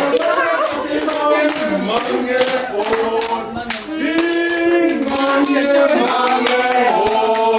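A small group of people singing together, holding long notes, with hand clapping in time throughout.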